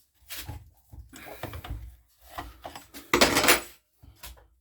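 Metal tools and small engine parts being handled and knocked about in short irregular clatters, with a louder scraping rush about three seconds in.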